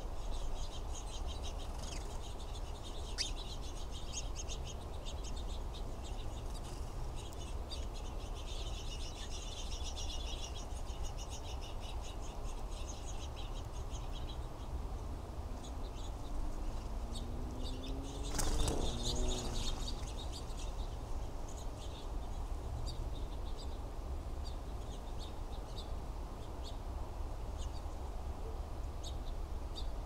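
Small songbirds chirping and twittering in quick high notes over a steady low rumble, with a short burst of wing flaps a little past halfway.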